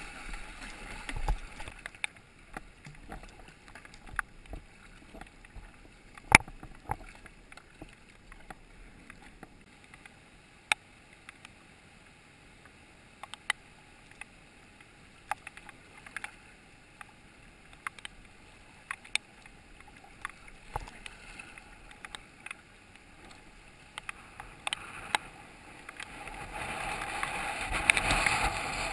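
Paddling a Perception Torrent sit-on-top kayak down a river: scattered sharp knocks and splashes of the paddle over a faint flow of water. Near the end, the rush of water over a rocky riffle grows louder.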